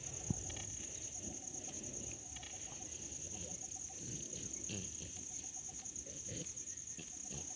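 Steady high-pitched insect chirring, a rapid even trill, with irregular rustling of dry brush and leaf litter beneath it and a single short snap about a third of a second in.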